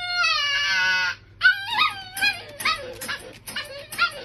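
A husky in its crate howling and whining: one long held howl that stops about a second in, then a quick string of short, wavering whines and yips.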